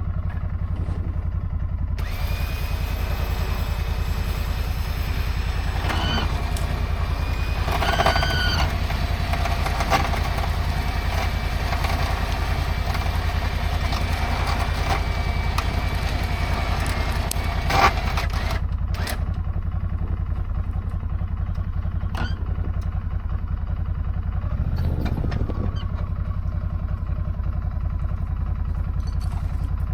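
A motor vehicle's engine running steadily with a low rumble, with a few knocks and clanks over it, the sharpest about eighteen seconds in.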